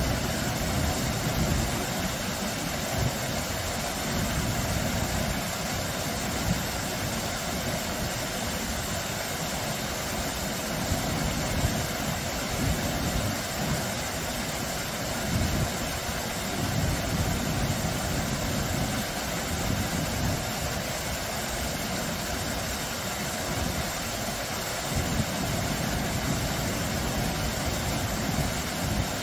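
Small, low waterfall spilling over rocks into a shallow stream: a steady rush of falling water, with a low rumble that swells and fades underneath.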